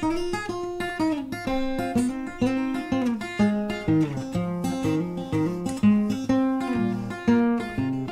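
Steel-string acoustic guitar played alone in a blues, a run of single picked notes and chords that each ring and fade, with no singing.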